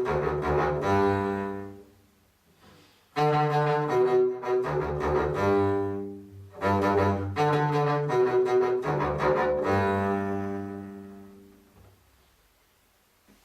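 NHK emergency broadcast chime played in a low register: a short phrase of sustained, layered low notes repeated, the last repeat fading out over a couple of seconds near the end.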